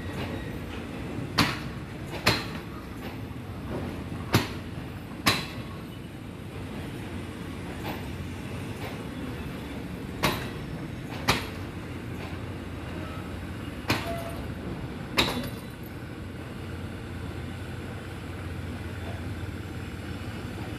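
A rake of passenger coaches rolling slowly along the platform with a low steady rumble, its wheels clacking sharply over rail joints in pairs about a second apart, four pairs in all. After the last pair only the rumble goes on.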